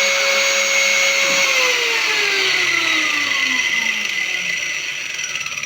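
CNC router spindle motor running at a steady high whine, then switched off about a second and a half in and spinning down, its pitch falling smoothly for several seconds. A higher steady whine keeps going underneath.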